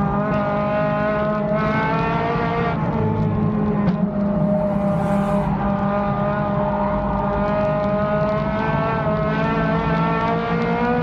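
Race car engine heard from inside the cockpit, running hard under racing load with a heavy low rumble. Its pitch dips about three seconds in, climbs slowly, then falls near the end as the revs come down.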